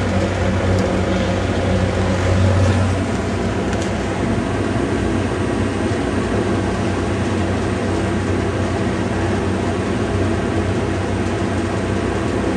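A steady low hum with an even rushing noise over it, and a few faint clicks in the first few seconds.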